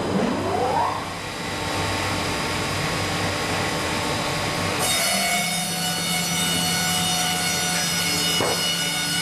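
Horizontal band sawmill running, its band saw blade cutting through wood. A rising whine in the first second, then about halfway the sound settles into a steady machine hum.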